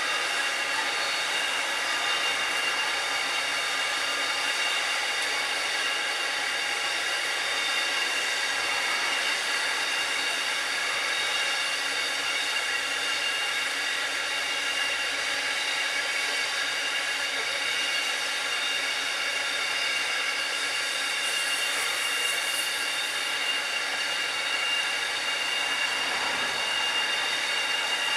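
Loaded grain hopper wagons rolling past on the rails: a steady rumble and hiss of steel wheels on track, with steady high-pitched ringing tones above it.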